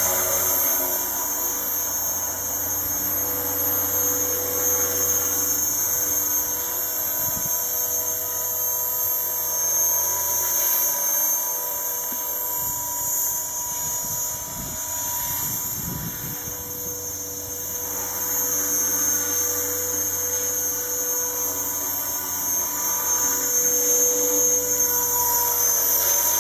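Razor 400 electric RC helicopter in flight: its brushless motor and spinning rotors give a steady, drill-like whine. The sound grows fainter about halfway through as the helicopter climbs high, then louder again as it comes back down.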